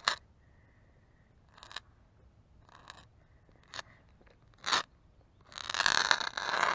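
Several separate sharp clicks, then about five and a half seconds in a small ground firework (a slider) goes off, fizzing and crackling loudly for about a second and a half.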